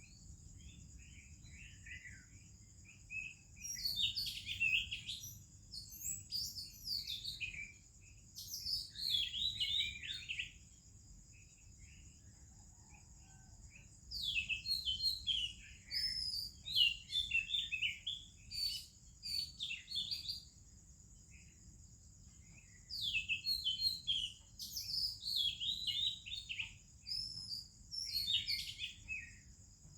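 Oriental magpie-robin singing its varied song of sweet whistles and quick warbled notes, in three bouts of several seconds each with short pauses between. A steady high-pitched hiss runs underneath.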